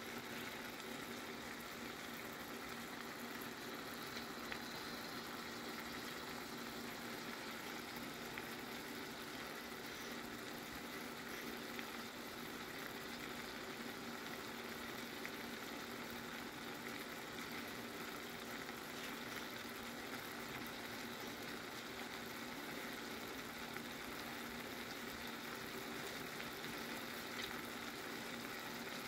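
Lemon garlic butter sauce bubbling and sizzling steadily in a skillet around a pan-seared halibut steak, with faint scattered pops over a steady low hum.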